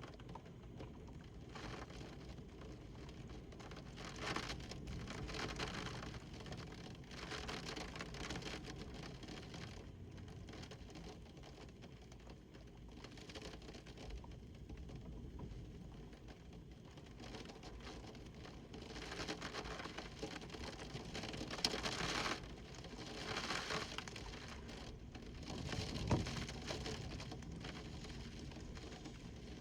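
Windstorm: wind gusting in several swells, the strongest about two-thirds of the way in, over a steady low rumble and a constant hiss of falling precipitation.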